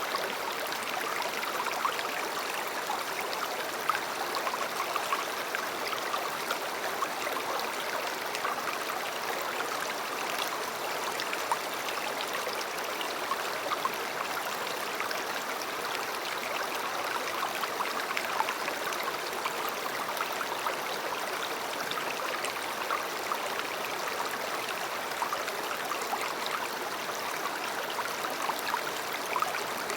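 A river flowing steadily over stones: a continuous rush of water full of small splashes and gurgles.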